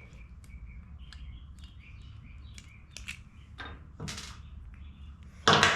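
Light clicks and taps of tools and small carburetor parts being handled, over faint short high chirps in the background, with a louder clatter near the end.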